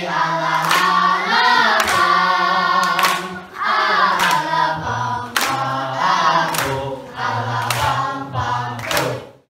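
A group of voices singing a song together, with hand claps keeping the beat about once a second. The singing cuts off suddenly near the end.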